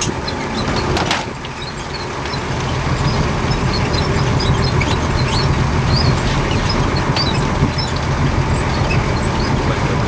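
Boat engine running steadily at a low hum, with scattered small high ticks over it.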